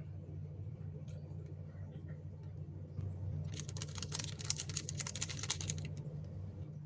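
Crinkling and rapid tapping of a plastic Ladaku ground-pepper sachet as the powder is shaken out into the bowl, lasting about two seconds past the middle. A steady low hum runs underneath throughout.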